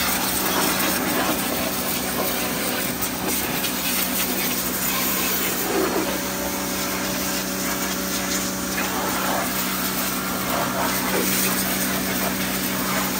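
Electric pressure washer running with a steady hum, its high-pressure water jet hissing as it blasts the car's wheel arch and engine bay.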